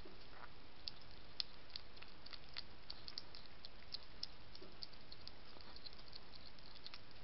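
European hedgehog eating dry food pellets from a dish: irregular small crunching clicks of chewing, several a second, over a steady background hiss.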